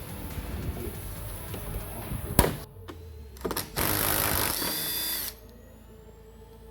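Power driver with a 10 mm socket running for about a second and a half, spinning out one of the bolts that hold the Tesla Model 3's rear bumper parts. Before it come a sharp click and some knocking of the tool and socket on the fasteners.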